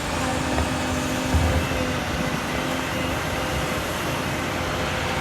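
Heavy diesel machinery, such as an excavator, running steadily with a low rumble and a steady hum.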